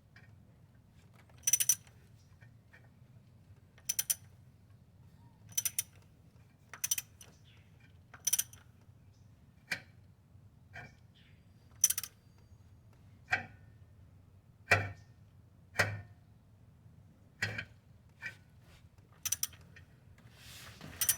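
Sharp mechanical clicks, one every second or two at an uneven pace, over a faint low hum.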